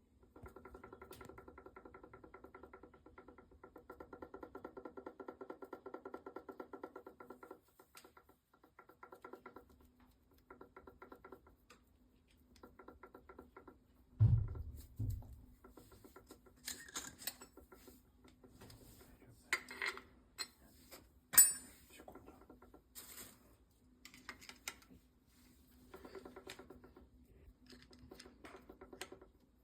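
Electric power steering column of a Kia K5/Optima knocking: rapid trains of light, evenly repeating knocks that come in bursts and stop, the sign of a fault in the steering column. A low thump comes about halfway through, and a few sharp clicks follow, the loudest a little after two-thirds of the way.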